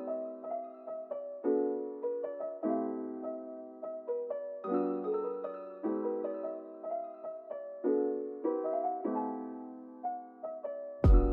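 Gentle solo piano music, a series of soft chords and melody notes. A sudden loud thump with sharp clicks cuts in right at the end.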